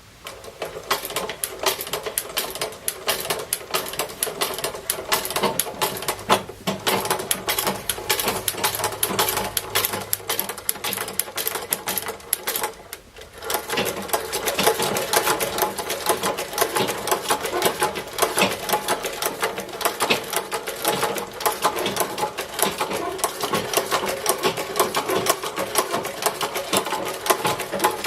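Singer patcher sewing machine running, a rapid, even clatter of stitches. It stops briefly about halfway through, then starts again and runs on.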